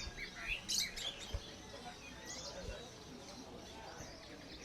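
Caged songbirds chirping and calling, a quick run of short high notes about a second in, then scattered single chirps, over faint background voices.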